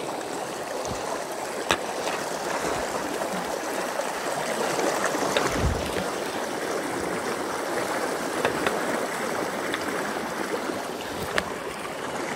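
Shallow mountain stream running over rocks: a steady rush of water, a little louder around the middle. A few sharp clicks stand out, the clearest near the start and near the end.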